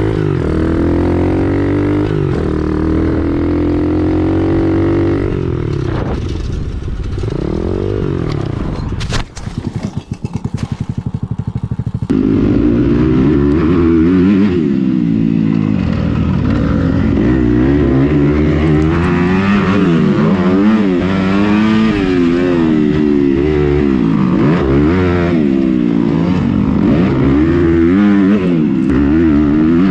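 Motorcycle engines, recorded on the bikes themselves. First a Coolster 125 pit bike's small single-cylinder engine pulls up through the revs, then falls to a low, pulsing idle about nine seconds in. From about twelve seconds in, a Kawasaki motocross bike's engine revs up and down over and over as it is ridden hard.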